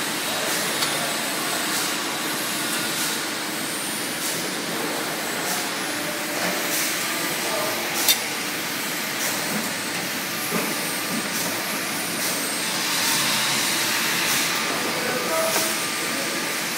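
Hydraulic press brake running: a steady hiss and hum from the machine, with a few short clicks as parts are placed at the tooling, the sharpest about halfway through.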